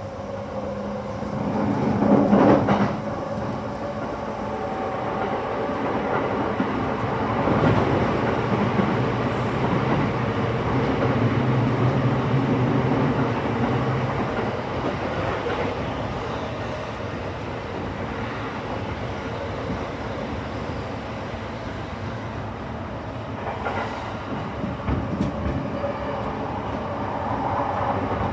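Commuter electric train running, heard from inside a passenger car: a steady rumble of wheels on rail, with a louder surge about two seconds in.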